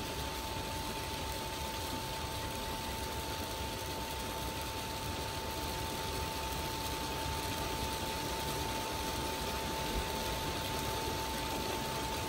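Electric motor driving a belt-driven corn-puffing extruder, running steadily with a constant high whine over a hiss while puffed corn comes out in ropes.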